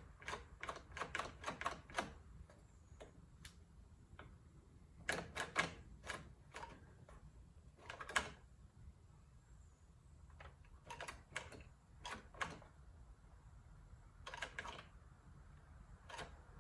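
Sharp clicks and taps in quick irregular clusters as a chainsaw is handled, its throttle trigger and plastic parts being worked by hand.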